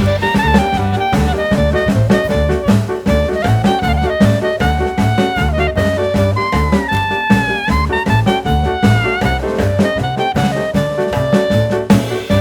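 Upbeat swing-style jazz background music with drums, a walking bass and a brass lead line.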